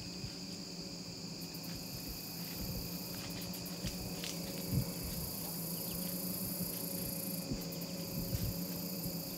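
Steady high-pitched insect chorus trilling on without a break, with a few faint ticks and rustles and one soft knock about five seconds in.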